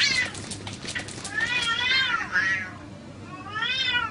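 Two cats fighting, yowling at each other in about four calls that each rise and then fall in pitch, one of them fluttering. Quick sharp clicks from the swatting scuffle come through in the first second and a half.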